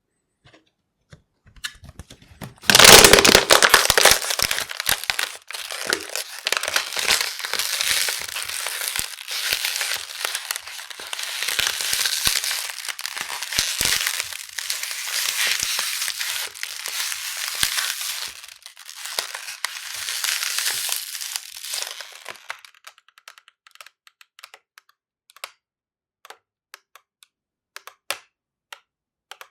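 A plastic bottle being squeezed and crushed by hand. A loud crunch comes about three seconds in, then continuous crinkling and crackling for about twenty seconds, thinning out to scattered clicks and pops near the end.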